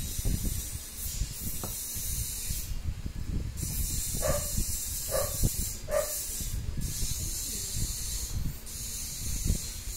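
Close eating sounds: fingers working rice on a banana leaf and chewing, over a steady hiss. About halfway through come three short squeaks, roughly a second apart.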